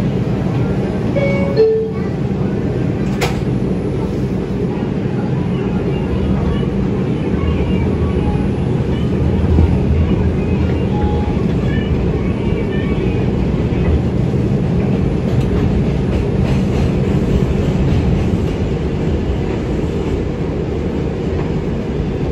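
R142 subway car at a station: a descending two-tone door chime, a knock as the doors shut about three seconds in, then the train pulling out, its motors and wheels running steadily on the elevated track.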